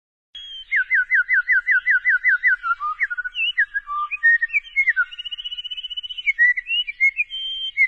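A person whistling an imitation of songbird song: a quick run of about ten falling whistled notes, then varied chirps, warbles and a held high whistle.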